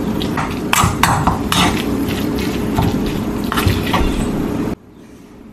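Metal spoon scraping and clinking against a metal mixing bowl while flaking and stirring canned tuna, in irregular strokes that stop abruptly near the end.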